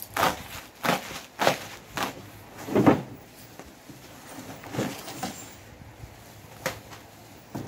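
Bubble wrap and packing tape being cut and pulled off a cardboard box: a series of short crinkling, tearing rustles, the loudest about three seconds in, then a few lighter ones.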